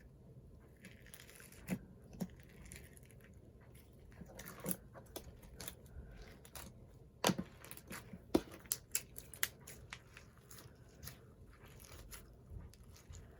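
Butter slime with a clay topping being mixed and stretched by hand, giving scattered soft clicks and pops. The clicks come thickest in the second half.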